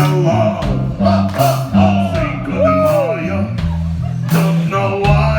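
Live rock band playing: a stepping bass line, drum hits and guitar, with a lead line whose note slides down about three seconds in.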